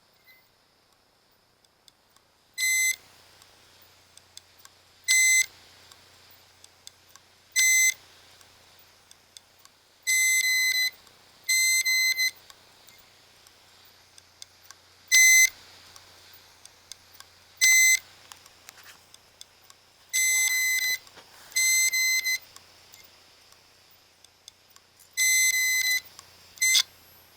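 Failing hard disk drive giving short, high-pitched buzzing beeps about every two to three seconds, some in quick pairs, over a faint steady hum while the platters spin: the buzzing of a bad drive.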